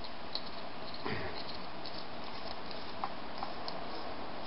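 Faint, scattered clicks and taps of a half-inch wrench and small metal parts as a Tecumseh lawn mower carburetor is taken apart, over a steady background hiss.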